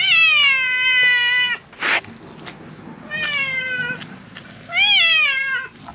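Silver tabby cat meowing loudly three times: a long call, a shorter one, then one that rises and falls. These are the insistent meows of a cat demanding something. A brief noisy sound comes between the first two calls.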